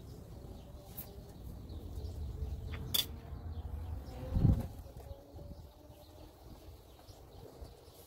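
A brake pad being handled at a disc-brake caliper bracket: a few light clicks, the sharpest about three seconds in, then a dull thump about four and a half seconds in, over a low rumble that dies down after it.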